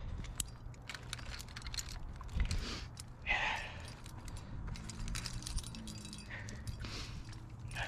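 Metal climbing hardware (carabiners and cams) clinking and jangling together in an irregular run of light metallic clinks.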